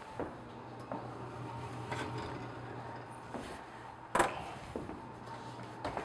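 A metal cake pan set down on a wire cooling rack with a sharp knock about four seconds in, amid a few softer knocks and clicks of handling, over a steady low hum.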